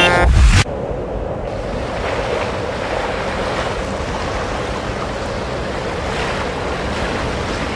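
Ocean surf washing steadily onto a beach. At the very start, a brief horn blast and the rushing noise of a moving vehicle cut off abruptly.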